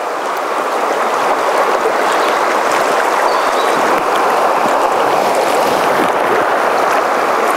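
Fast river current rushing over a rocky riffle: a steady, unbroken rush of water.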